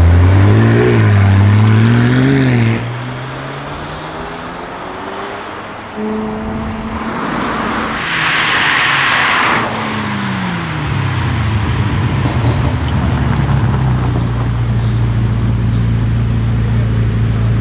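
McLaren 600LT twin-turbo V8 under hard acceleration close by, its pitch climbing and dropping through quick upshifts before fading into the distance. Then another 600LT's engine runs at low, steady revs, after a brief rush of noise midway and a falling engine note.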